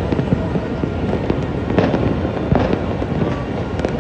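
Many fireworks and firecrackers going off at once, a continuous crackle of overlapping pops and bangs with a few sharper cracks standing out.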